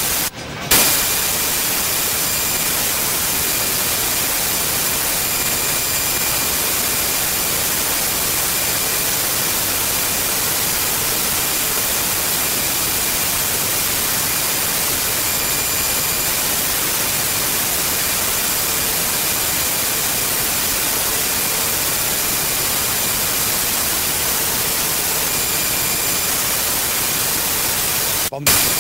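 Steady loud hiss of analogue video static (snow), with faint steady whistle tones in it. It drops out for a moment just after the start and again near the end.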